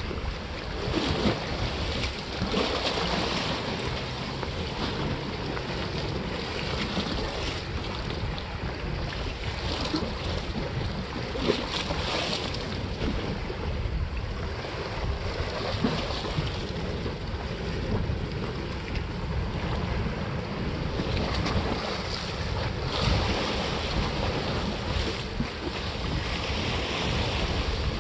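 Sea waves washing against the rock blocks of a breakwater, the surf hiss swelling up several times, under steady wind noise on the microphone.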